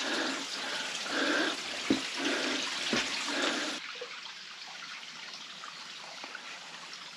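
Water of a mountain spring running and splashing in a steady rush, with two soft knocks about two and three seconds in. About four seconds in the sound drops suddenly to a fainter, steadier trickle.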